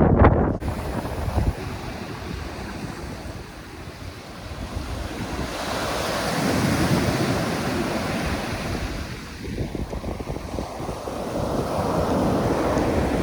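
Heavy surf breaking on the shore, swelling louder about halfway through and again near the end, with strong wind buffeting the microphone.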